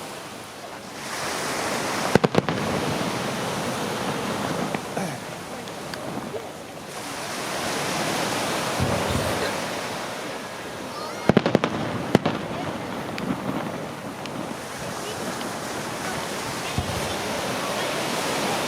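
Pirotecnia Martí fireworks display: a continuous noisy wash of bursting shells, with sharp bangs about two seconds in and again around eleven and twelve seconds in.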